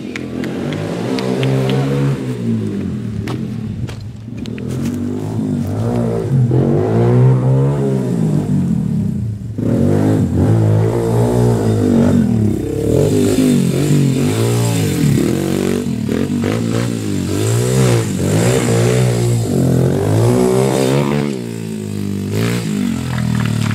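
Esse Factory pit bike engine revving up and down as it is ridden hard, its pitch rising and falling many times over as the throttle is opened and closed.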